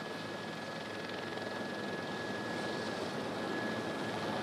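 Steady aircraft noise: an even whooshing haze with a faint constant high whine, slowly getting louder.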